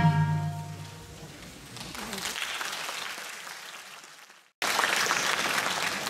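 The dance music ends on a last pitched note that rings out and fades over about a second, then audience applause starts about two seconds in. The applause dies down, cuts out for a moment, and comes back loud near the end.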